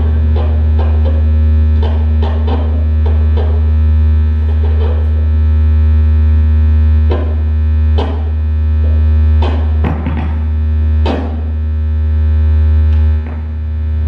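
Live experimental electronic music: a loud, steady low synthesizer drone with a few held higher tones, struck through by irregular sharp clicks and clattering hits, some with a short swooping pitch. The drone dips and shifts just before the end.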